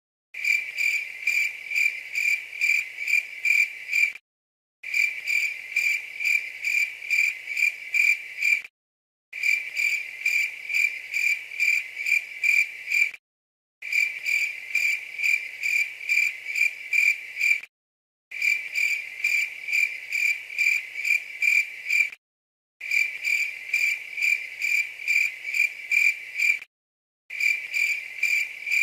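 Cricket chirping at one steady high pitch, about three chirps a second. The same few-second recording plays over and over, each pass cut off by a short gap of dead silence before it starts again.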